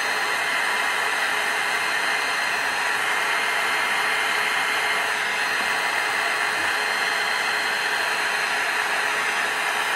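Electric heat gun running steadily, its fan blowing hot air with an even hiss and a faint steady hum, shrinking heat-shrink tubing over a spliced wire joint.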